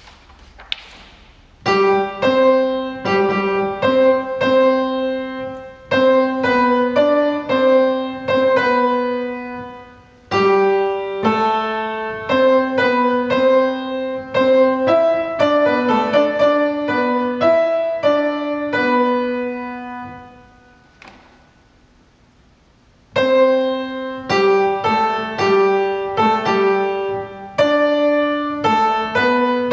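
Piano playing a slow chordal passage in phrases, beginning about two seconds in, pausing briefly about ten seconds in and for about two seconds just after twenty seconds.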